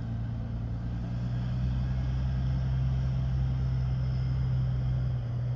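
A vehicle engine running steadily: an even, low hum that holds the same pitch throughout.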